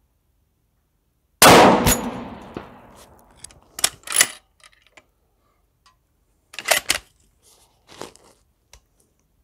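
A single rifle shot from a 6.5 Creedmoor Ruger Precision Rifle about a second and a half in, with a long echoing tail, and a second sharp crack about half a second later as the bullet hits the steel paddle target. A few short metallic clacks follow, twice grouped in pairs.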